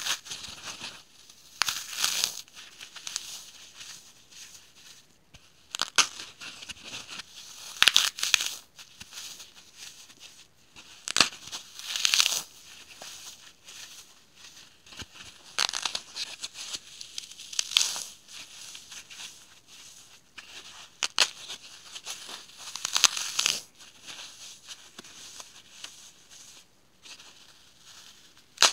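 Dry, unsoaked floral foam crushed and broken apart in gloved hands: irregular bursts of crunching and crumbling, a second or two apart, with the loudest crunches about 8 and 12 seconds in.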